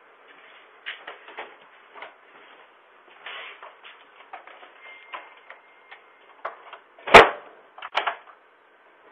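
Scattered light clicks and knocks heard through a security camera's thin-sounding microphone, then one very loud, sharp bang about seven seconds in and a smaller one about a second later.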